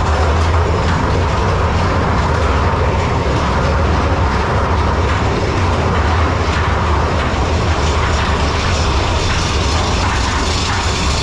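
Big Thunder Mountain Railroad mine-train roller coaster running along its track, heard from on board: a steady, loud rumble with clattering from the wheels and cars.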